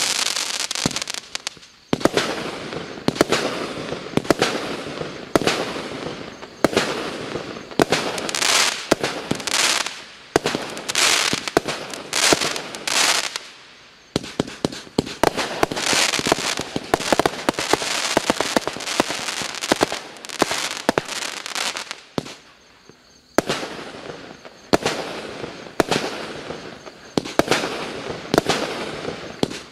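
Klasek C212MF/C Profi, a 212-shot compound fireworks cake, firing: a rapid run of launching shots and bursts with hissing tails, broken by short lulls near the start, about halfway through and about three quarters of the way in.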